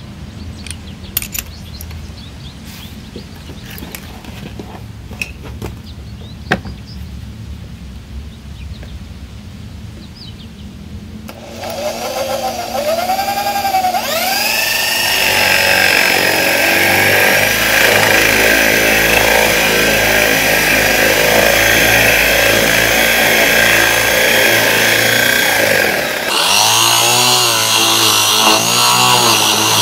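Faint clicks, then, about eleven seconds in, an electric drill spins up with a rising whine and drives a 25 mm spade bit into plywood, running loud and steady under load as it bores the hole. The sound changes briefly near the end and the drilling carries on.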